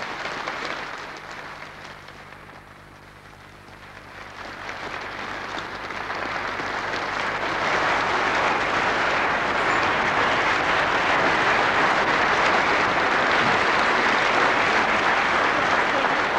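Studio audience applauding. The clapping sinks low about two seconds in, then builds again and is loud and sustained from about eight seconds on.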